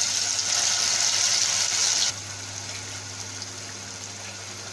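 Wet ground garlic chutney paste sizzling loudly as it hits hot oil in a kadhai. About two seconds in, the sizzle drops suddenly to a quieter, steady frying hiss.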